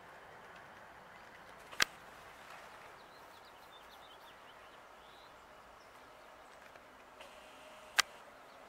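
Faint steady outdoor background hiss, broken twice by a sharp click, once about two seconds in and again about six seconds later.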